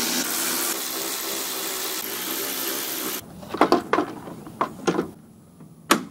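A steady whirring noise for about three seconds that cuts off abruptly, then several sharp plastic knocks and clicks as a plastic lower bumper mount bracket is handled and fitted against a pickup's radiator support.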